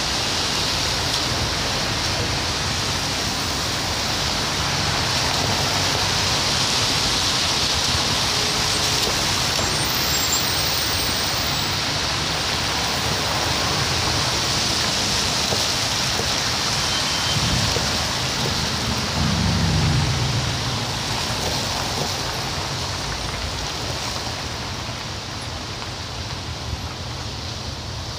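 Steady city traffic on a wet, slushy road: a continuous hiss of tyres on wet asphalt over engine rumble. A deeper engine rumble swells and fades about twenty seconds in, the loudest moment.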